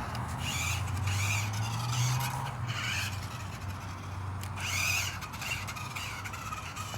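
Small remote-control car's electric motor whining in short bursts as it is driven, each burst rising and falling in pitch, over a steady low hum.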